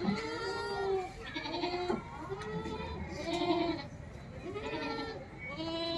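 Young Saanen goats bleating, about five calls in a row, each wavering and lasting under a second.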